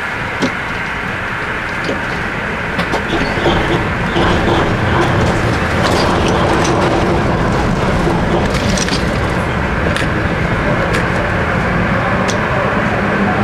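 DÜWAG crank-controlled tram running, heard from the driver's cab: a steady rumble of motors and wheels on rail with scattered short clicks and knocks, growing louder about three to four seconds in.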